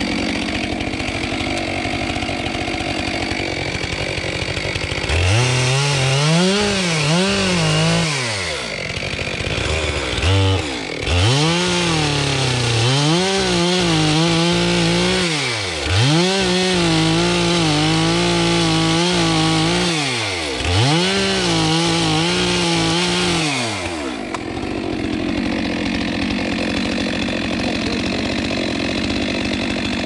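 Two-stroke Stihl chainsaw idling, then revved up about five seconds in and run at full throttle crosscutting a thick white oak timber. The engine note sags and recovers several times as the chain bites into the wood, then drops back to idle near the end.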